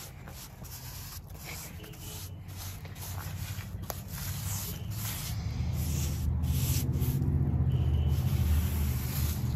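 A paintbrush scratches wood stain onto a dry, rough wooden post in repeated back-and-forth strokes, with short pauses between them. A low rumble builds through the second half and becomes the loudest sound.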